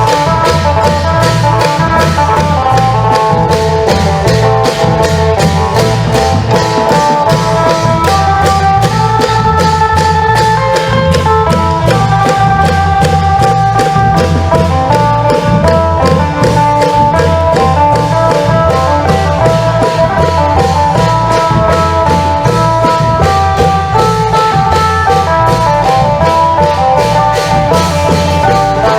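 Isan long-drum (klong yao) band music: a plucked phin lute plays a running melody over a steady beat of long drums and percussion.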